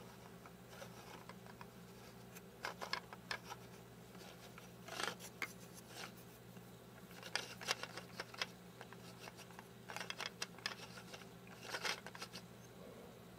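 3D-printed plastic gears and rack clicking and scraping in scattered bursts of faint clatter as the mechanism is turned by hand.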